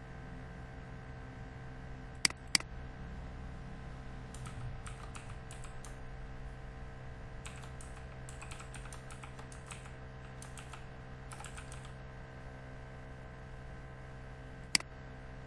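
Computer keyboard typing in several short bursts, as a project name is keyed in. Two sharp mouse clicks come about two seconds in and another near the end, over a steady low hum.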